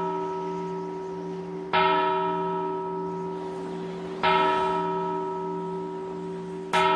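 A church bell tolling slowly, struck three times about two and a half seconds apart, each strike ringing on and fading into the next.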